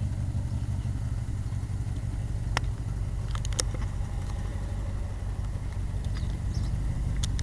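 1959 Ford Thunderbird V8 idling steadily with a low rumble. A sharp click sounds about two and a half seconds in, and a quick run of three clicks follows a second later.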